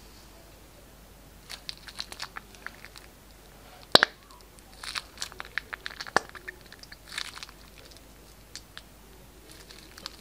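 Plastic piping bag crinkling as it is squeezed, with sticky clicks and small pops as slime and trapped air are pushed out of the tip, in several short bursts. A single sharp click about four seconds in is the loudest.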